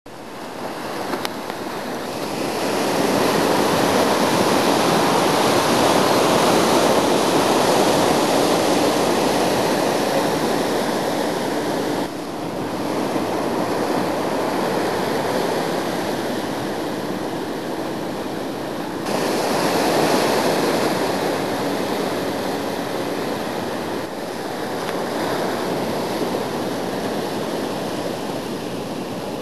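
Ocean surf: breaking waves and rushing whitewater, a steady wash of noise that swells and eases. The sound changes abruptly twice, dropping away and then jumping back up.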